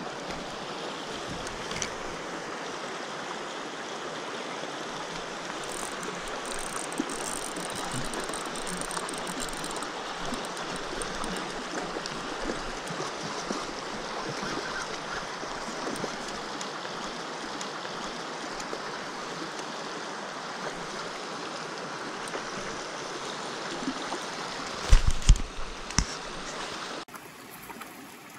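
Mountain stream running over stones: a steady rush of flowing water. Near the end a few loud thumps, then the water sound drops to a quieter, softer flow.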